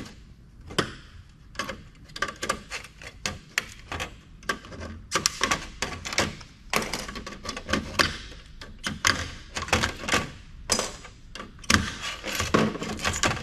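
Irregular clicks, taps and knocks of old desktop computer parts being handled and pulled apart by hand, plastic and metal striking each other.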